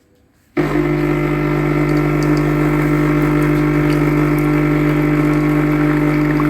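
Coffee machine running with a loud, steady electric hum that starts abruptly about half a second in, while it makes a double portion.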